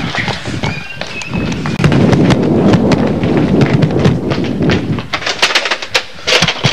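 Running footsteps on a hard tiled hallway floor, over heavy rumbling handling noise from a handheld camcorder carried at a run. The rumble eases after about five seconds, and a clatter of knocks follows a second later as a door's push bar is shoved.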